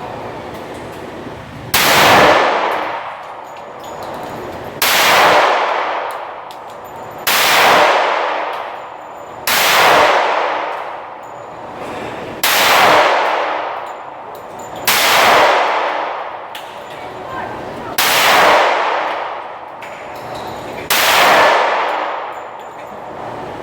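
Eight single gunshots fired one at a time about every two and a half to three seconds, each with a long ringing echo that dies away before the next shot.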